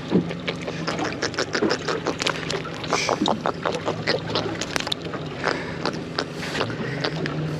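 Water slapping and splashing against the hull of a small fibreglass boat in a series of short, irregular knocks, over a steady low hum.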